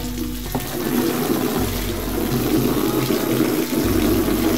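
Water running steadily from a garden tap through a short pipe and splashing onto wet concrete, with rain falling.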